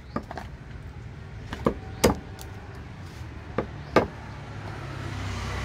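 A heavy curved cleaver-knife chopping through fish onto a wooden chopping block: about seven sharp chops at uneven intervals, the loudest about two and four seconds in. A steady low rumble runs underneath and grows louder near the end.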